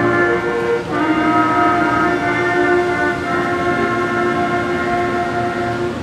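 School concert band (woodwinds and brass) playing long, held full chords, moving to a new chord about a second in and again around three seconds.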